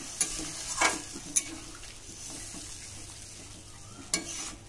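A steel ladle stirs a wet curry in a steel kadai, knocking sharply against the pan a few times, over the steady hiss of the curry cooking on the gas flame.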